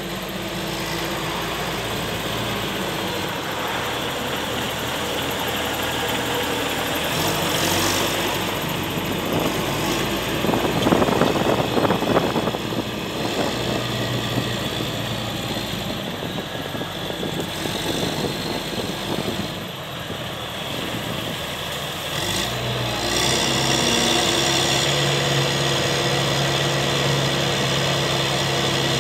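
Diesel engine of a Terra Gator self-propelled slurry applicator running as the machine drives slowly up and stops alongside a slurry container. It swells louder for a moment about eleven seconds in, and about two-thirds of the way through settles into a steadier, stronger hum.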